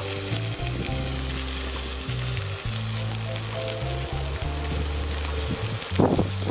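Egg-soaked bread sizzling in hot oil and butter in a nonstick frying pan, a steady spitting hiss throughout. A silicone spatula spreads and presses the chopped onion-tomato topping on the slice, with a few sharper scraping strokes about six seconds in. Background music plays underneath.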